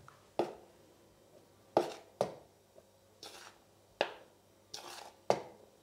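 Metal spoon tapping and scraping against a stainless steel flour sifter and a ceramic bowl as flour is spooned into the sifter: six or seven short knocks, about a second apart.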